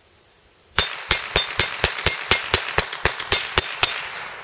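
ISSC MK22 semi-automatic rifle firing .22 LR CCI Mini-Mag rounds in a rapid string at a steel gong: about thirteen sharp shots at roughly four a second. The string stops short of the 22-round magazine with a feeding stoppage, a cartridge not fully chambered in a rifle fouled after about 300 rounds without cleaning.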